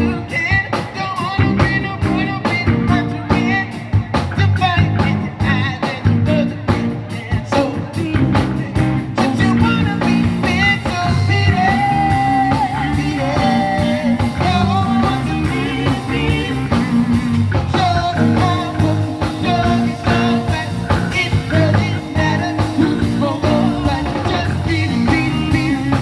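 Live band music: a singer over a band with guitar, bass, keyboard and drums.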